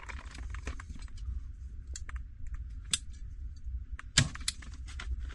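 Scattered small clicks and crinkles of gloved hands working at a plastic water pipe and its wrapping, with one sharper knock about four seconds in, over a low rumble.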